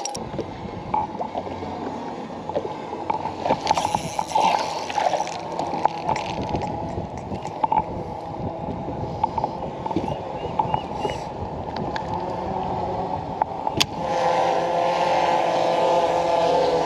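Water slapping and gurgling against a bass boat's hull, with wind on the microphone and scattered knocks. About fourteen seconds in, a steady droning motor hum starts and carries on.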